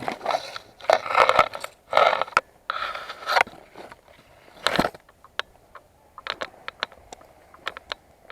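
Loud scraping and rustling for the first few seconds, a single heavy burst just before the halfway point, then a scatter of sharp, irregular clicks.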